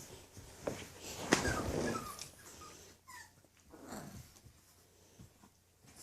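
English Bulldog puppies giving a few short, high whimpers, a cluster about one and a half seconds in and two more about three seconds in.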